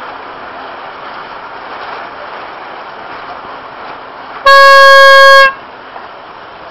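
Regatta start signal: one loud, steady horn blast about a second long, about four and a half seconds in, sounding the start of the sailing race, over a steady background hiss.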